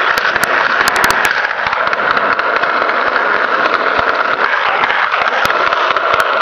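Skateboard wheels rolling on a concrete sidewalk: a steady, loud rolling hiss with a few sharp clicks, a cluster of them about a second in and two more near the end. It cuts off suddenly at the end.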